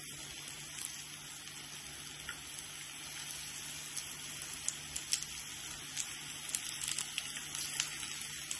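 Gram-flour pea pakoras deep-frying in hot oil in a kadhai: a steady sizzle dotted with many small crackles and pops, over a faint steady low hum.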